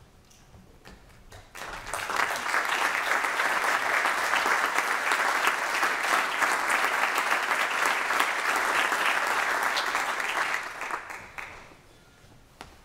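Audience applauding, swelling up about a second and a half in, holding steady for about nine seconds, then dying away near the end.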